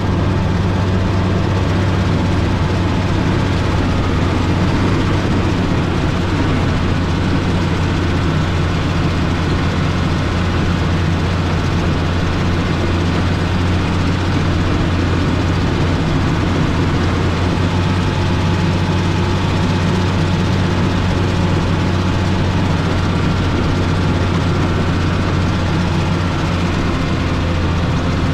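Motor grader's diesel engine running steadily with a constant low hum.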